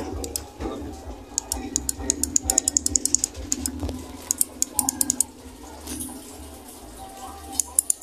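Small plastic lever microswitch clicking in quick runs as it is pressed over and over by hand to test it: three bursts of rapid clicks, the longest about two seconds.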